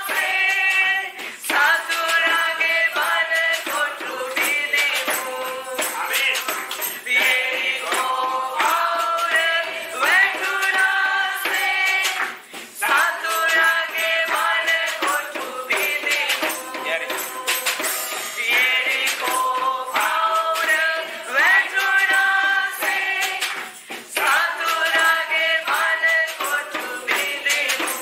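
Church worship song: voices singing a melody with a lead singer on a microphone, accompanied by a shaken tambourine.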